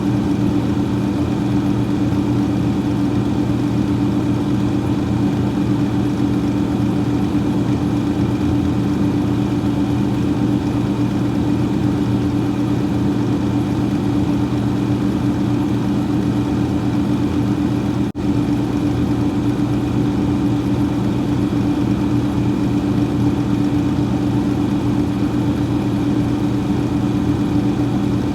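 Freezer fan running steadily: a constant low hum with an even whir, broken by a split-second dropout about eighteen seconds in.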